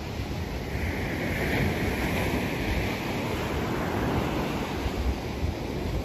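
Sea waves breaking and washing up on the beach, one wave's wash swelling about a second in and easing off, with wind buffeting the microphone.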